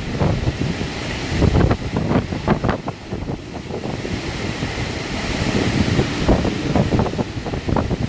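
Hurricane wind gusting hard, buffeting the microphone in irregular blasts over a steady hiss.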